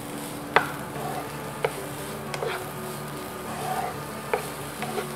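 Wooden spatula stirring chopped onions frying in oil in a kadai, knocking against the pan several times, the loudest knock about half a second in, over a light steady sizzle.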